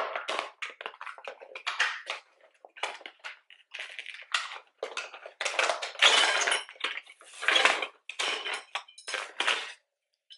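A small cardboard box and its packaging being opened and handled: irregular crinkling and rustling with small clinks of hard items inside, in quick uneven bursts.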